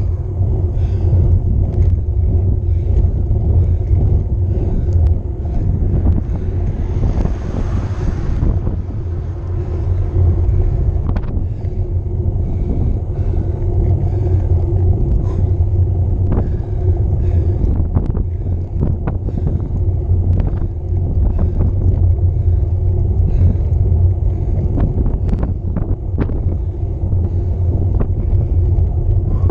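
Wind buffeting the microphone of a handlebar-mounted camera on a road bicycle descending at speed, over a steady low rumble of the tyres on tarmac. Scattered small clicks and knocks sound throughout, with a brief rush of wind about seven seconds in.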